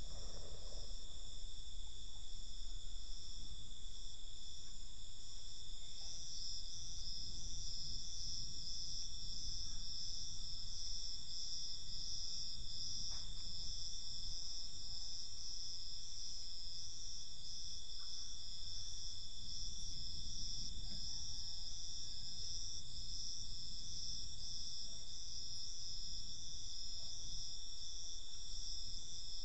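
Crickets trilling continuously, a high steady shrill with a fast pulsing texture, over a low background hiss.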